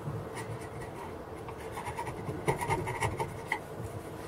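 Bench chisel paring the end grain of oak dovetail pins by hand, a run of light scrapes and small clicks that gets busier and sharper about halfway through. It is trimming a pin that is too tight for the joint to fit.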